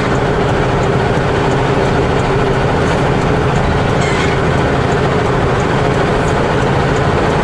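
Semi-truck's diesel engine and road noise heard inside the cab while driving, a steady drone with a held mid-pitched tone.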